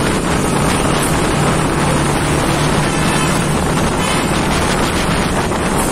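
Steady wind rushing over the microphone while riding along a wet road in the rain, with a low steady engine hum and the hiss of tyres on wet tarmac beneath it.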